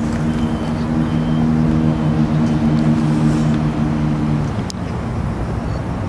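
Electric hub motor of a 3000 W e-bike pulling away on the lowest power level, a steady low hum that cuts off about four and a half seconds in, over a constant rushing noise.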